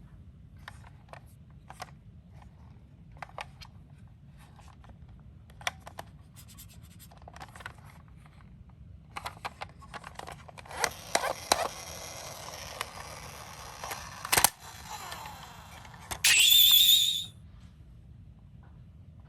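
Toy miniature ambulances handled with scattered plastic clicks. One rolls and scrapes over cardboard for about five seconds. Near the end a toy's electronic siren sounds: a loud, high, wavering tone about a second long.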